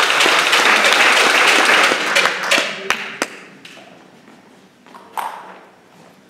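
Spectators applauding and clapping at the end of a table tennis rally, the applause dying away over about three seconds.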